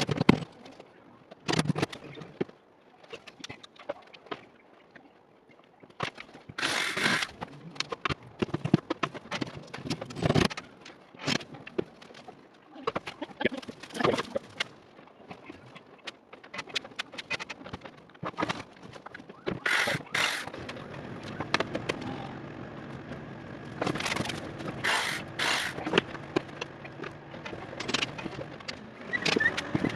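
Intermittent knocks, clicks and scrapes of hand work on a melamine cabinet carcass as drawer slides are positioned and fastened. A faint steady hum comes in about two-thirds of the way through.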